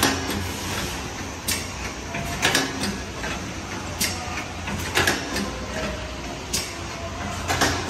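Paper cake-cup forming machine running: a steady mechanical hum with sharp clacks that come in pairs, about a second apart, repeating every two and a half seconds or so.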